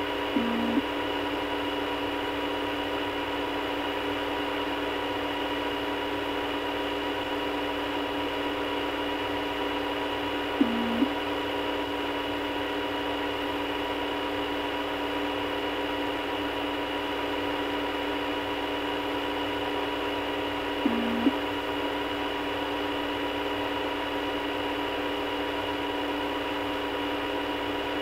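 Telephone line held open on hold: a steady hum and hiss, with a short low beep three times, about ten seconds apart.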